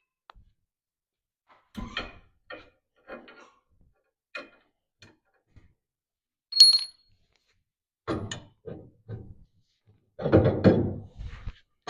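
Metal hot-rod front-axle parts being handled and set down: scattered clunks and knocks, one sharp ringing clink of metal about six and a half seconds in, and a longer, louder clatter near the end.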